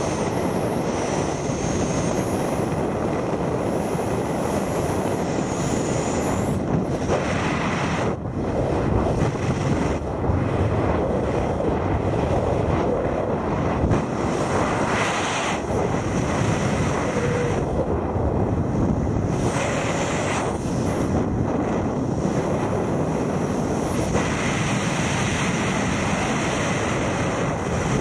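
Wind rushing over the camera's microphone during wingsuit freefall: a loud, steady roar of air whose tone shifts now and then as the flier moves. A faint high whistle rides over it in the first few seconds.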